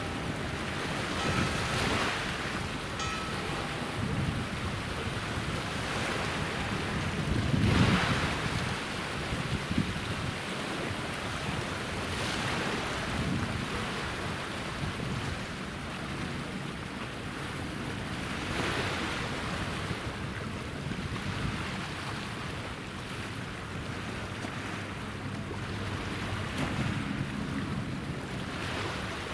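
Sea waves washing in, rising and falling in surges every few seconds, the loudest about eight seconds in, over a steady rush of wind.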